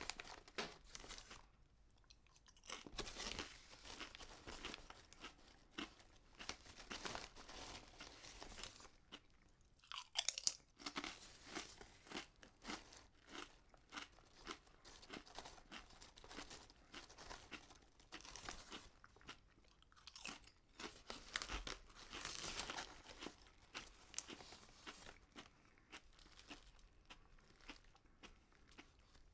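A person chewing potato chips close to the microphone: repeated crisp crunches in runs, with short pauses between mouthfuls and one loud crunch about ten seconds in.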